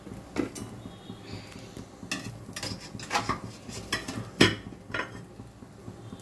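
Metal kitchen utensils and cookware clinking and knocking: a string of sharp clicks, the loudest about four and a half seconds in.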